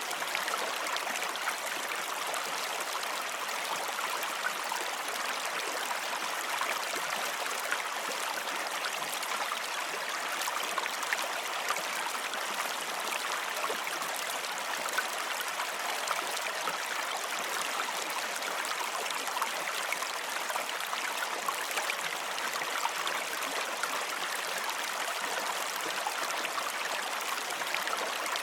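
Running water, like a stream, flowing steadily without a break.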